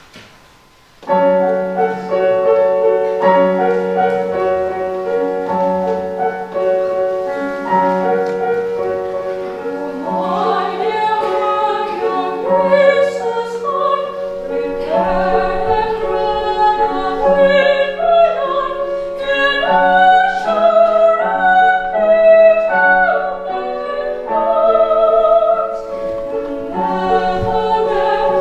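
A slow accompaniment of held chords begins about a second in, and about ten seconds in a woman's solo voice enters above it, singing a carol in a classical style with vibrato.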